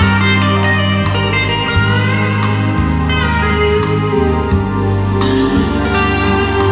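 Recorded music played through Dali Ikon 5 mk2 loudspeakers: a deep, sustained bass line under high notes that slide up and down in pitch.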